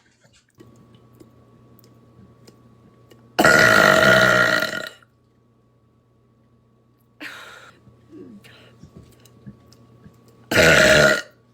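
A woman burping loudly twice: a long burp about three seconds in that lasts about a second and a half, and a shorter one near the end.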